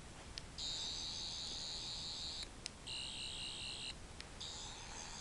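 Toy sonic screwdriver's electronic sound effect: a high-pitched buzz played three times with short gaps, the middle one lower in pitch, with button clicks between them.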